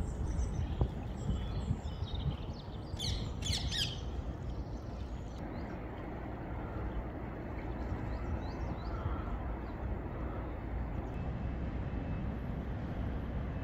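Small birds chirping, with two sharp squawks about three seconds in, over a steady low rumble; the chirping dies away after about five seconds, leaving the rumble alone.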